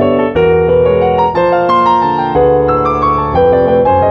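Intro theme music played on a piano-like keyboard: held chords with a melody on top, the notes changing every half second to a second.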